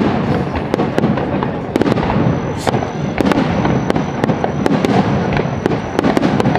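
Fireworks going off in a dense barrage: many sharp bangs and crackles a second over a continuous rumble. About two seconds in, a thin high whistle comes in and holds.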